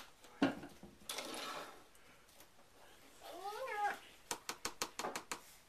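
A sharp knock near the start, then a single meow-like call that rises and falls in pitch about three seconds in, followed by a quick run of sharp clicks.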